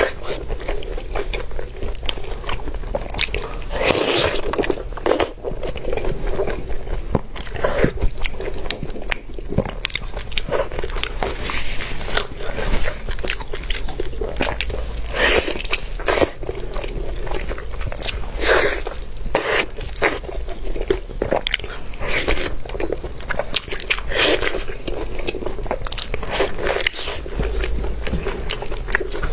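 A person biting and chewing glazed braised meat: a steady run of crackly, wet mouth sounds, with louder bites every few seconds.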